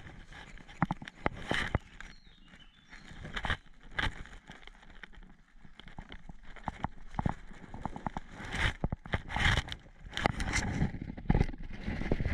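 Footsteps and rustling gear on a forest floor of dry twigs and leaf litter, with irregular crunches and clicks that come thicker in the second half.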